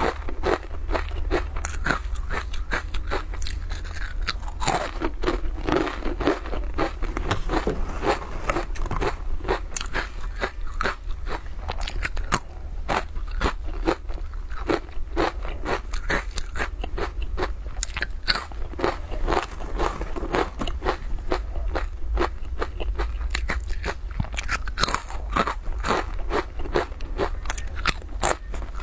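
Close-miked crunching of crispy guoba crackers (fried grain crust snack) being bitten and chewed, with many sharp crackles in quick succession, over a steady low hum.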